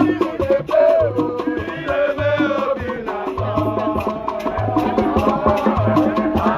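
Upbeat dance music with a bass note pulsing about twice a second, crisp percussion clicks and a wavering melody on top.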